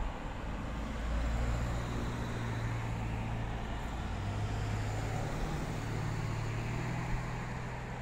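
An engine humming steadily, its low pitch shifting slightly about halfway through.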